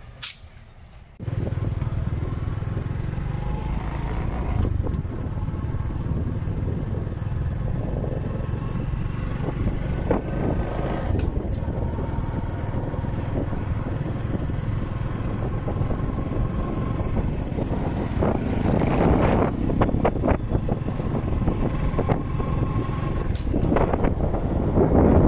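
Motorcycle riding along a rough road: steady engine and wind rumble that starts suddenly about a second in, with other traffic swelling up past the middle and again near the end.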